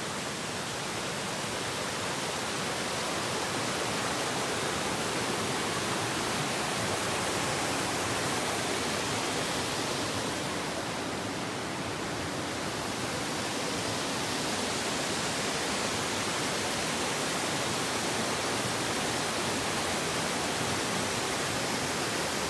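Water from a small forest stream pouring over a rocky cascade into a pool: a steady rushing, slightly softer in the highs in the middle.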